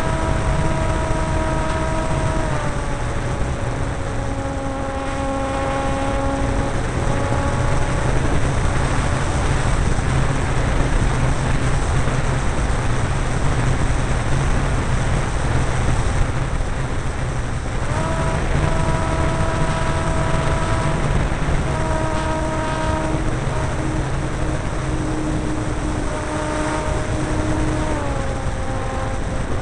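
Onboard sound of a Parkzone Spitfire Mk IX electric RC model: the propeller and electric motor give a whine that steps down in pitch as the throttle is eased, under loud wind rush. The whine drops out for about ten seconds midway while the wind rush carries on, then comes back and steps down twice more.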